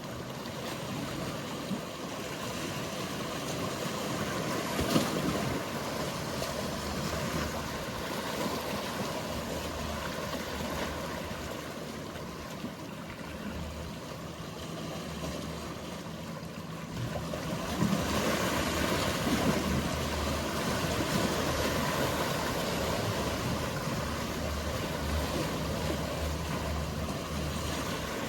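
Sea waves washing and surging, under the low steady hum of a boat engine. A single sharp knock comes about five seconds in, and the wash grows louder about two-thirds of the way through.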